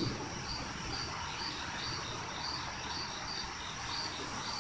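Night insects chirping in an even rhythm, about two high chirps a second, over a steady faint hiss.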